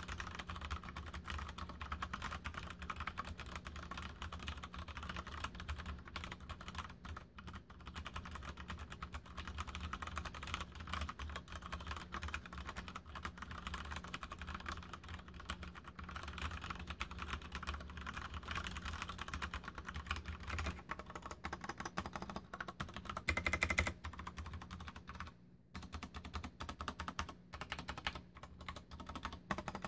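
Mstone Groove87 mechanical keyboard with brown tactile switches being typed on continuously, a dense run of fast keystrokes. A louder flurry comes about 23 seconds in, and there are brief pauses near the end.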